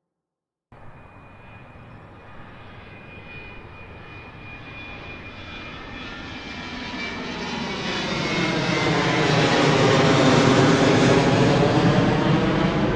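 Jet aircraft taking off: engine noise with a thin high whine cuts in suddenly under a second in. It grows steadily louder, peaks about ten seconds in, and begins to ease off near the end.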